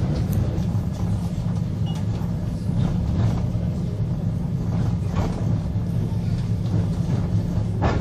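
Steady low rumble of a moving passenger train heard from inside the carriage: wheels running on the rails. A few brief louder noises break through, a little before 3 s, near 5 s and near the end.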